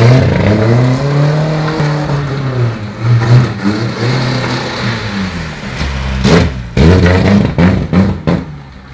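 Turbocharged, intercooled Ford Corcel engine being revved up and down repeatedly. About six seconds in there is a sharp bang, after which the engine runs choppy and uneven and fades away, a sign it is stumbling as it runs out of petrol.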